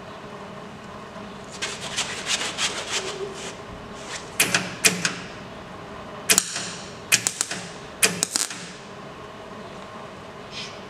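MIG welder crackling in several short bursts, the first and longest about two seconds, as weld is laid along a seam in a car's steel body panel in short stitches to fill the joint.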